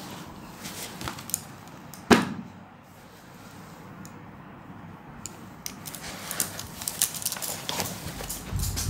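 Handling noise as a paperback workbook is moved about on a table: one sharp knock about two seconds in, then scattered light clicks and rustles, with low rumbling near the end.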